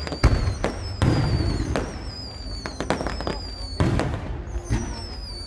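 Fireworks display: shells bursting with sharp bangs and crackling, the loudest bangs just after the start, about a second in and near four seconds. Several high whistles overlap, each sliding down in pitch.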